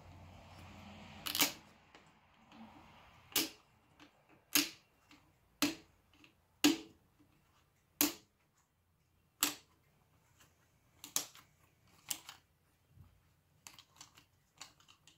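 Hinged plastic bus-bar covers on a Sonata hybrid battery pack being snapped open one after another: a sharp click about every second, with about nine loud snaps and then several fainter clicks near the end.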